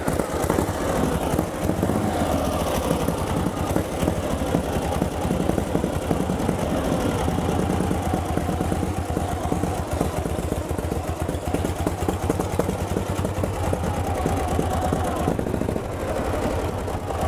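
1937 Harley-Davidson Knucklehead V-twin engine running at a steady idle, its exhaust beat even and unrevved. The sound changes slightly near the end.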